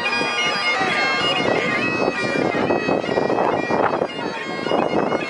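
A droning wind instrument holds steady notes over the chatter of a crowd.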